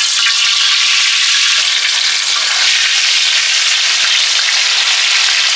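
Masala-marinated chicken pieces frying in hot coconut oil in a wide metal pan: a loud, steady sizzle as more pieces are added.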